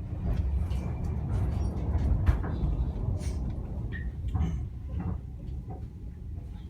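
Inside an electric passenger train carriage: a steady low rumble with scattered knocks and rattles.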